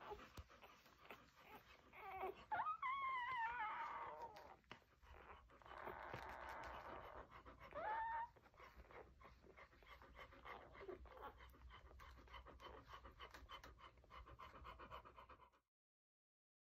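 Newborn English springer spaniel puppies squealing and whimpering as they nurse: a wavering high cry a few seconds in and a short rising squeak about halfway, over quieter shuffling and the mother's panting.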